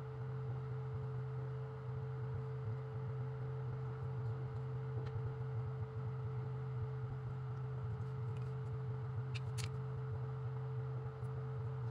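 A steady low hum with a fainter, higher steady tone above it, and a couple of faint sharp clicks about nine and a half seconds in.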